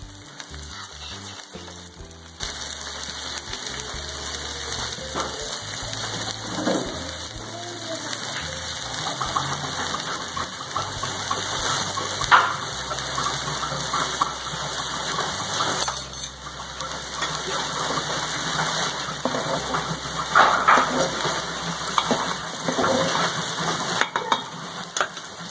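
Shredded cabbage, spring onions and other vegetables sizzling and crackling in a hot oiled frying pan, the sizzle growing louder about two seconds in, with soft background music underneath.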